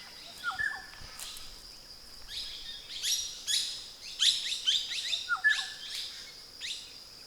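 Wild birds chirping: many short, quick notes that fall in pitch, repeated throughout, with a lower two-part call about half a second in and again about five and a half seconds in, over a faint steady high-pitched hum.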